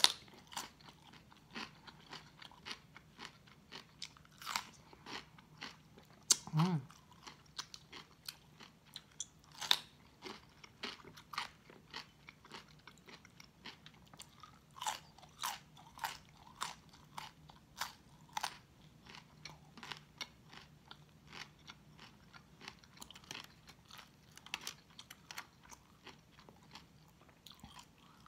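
Close-up eating sounds of raw cucumber and raw cauliflower: crisp bites and crunchy chewing, many sharp crunches in quick succession, cucumber first and cauliflower later.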